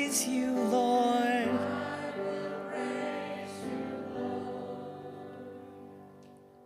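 Closing bars of a sung psalm. A voice holds the final word over instrumental accompaniment for about a second and a half, then the last chord rings on and slowly fades out.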